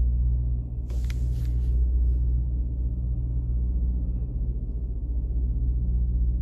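Steady low engine rumble with an even, pulsing hum, like a vehicle engine running. About a second in there is a brief rustle.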